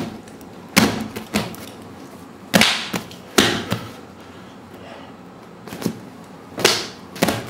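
A person's head and hair smacking against the ground again and again in jerky, thrashing movement: a string of irregular thumps with rustles, roughly a second apart, some harder than others.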